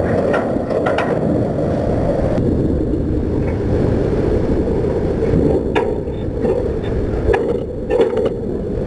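Massive steel jacket sliding along a launch barge's skid rails into the sea: a steady low grinding rumble broken by sharp steel knocks and cracks, several near the end.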